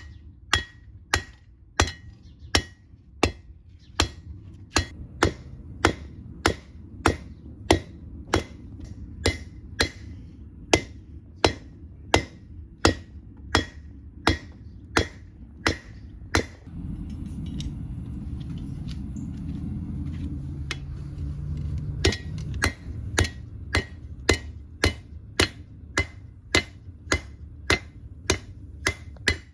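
A hand hammer forging a steel blank cut from an old lawn mower blade, with steady ringing blows about two a second. About two-thirds of the way through the blows stop for several seconds and a steady low rumble is heard, then the hammering resumes.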